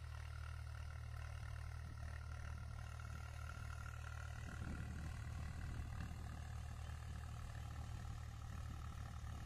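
Swaraj 735 FE tractor's three-cylinder diesel engine running steadily under load at full throttle in 2nd high gear, pulling a 16-disc harrow through ploughed soil. It grows a little louder around the middle as the tractor draws closer.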